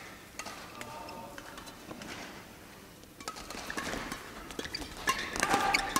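Badminton rackets hitting a shuttlecock in a warm-up rally: quiet for the first half, then sharp hits from about halfway in, coming faster and louder near the end.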